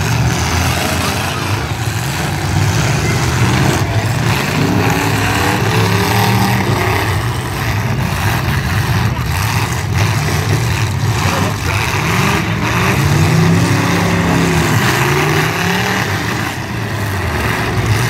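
Demolition derby cars' engines revving, several at once, their pitch rising and falling again and again over a steady loud din.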